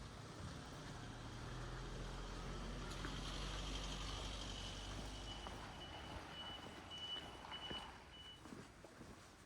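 A vehicle's reversing alarm beeps in a high, repeated tone for about five seconds over the low, steady running of an engine.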